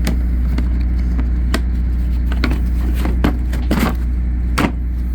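Metal tool-chest drawers and tools being handled: a string of irregular clicks, clinks and knocks, the loudest near the end. Under them runs a steady low machine hum.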